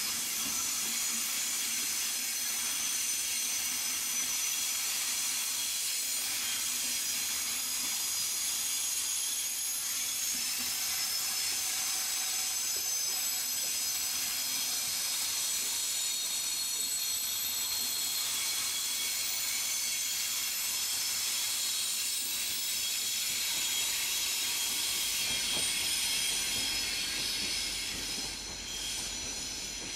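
Passenger train coaches rolling past on curved track, with steel wheels squealing in several held high tones over the rolling noise. The sound drops away near the end as the rear of the train moves off.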